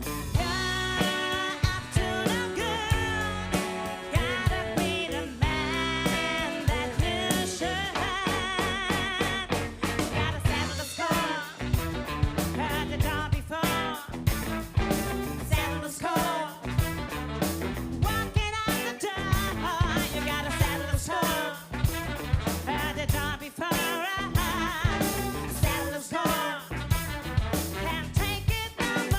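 Live funk and soul band playing an instrumental passage of a song: a drum kit keeps a steady beat under bass and a wavering melodic lead line.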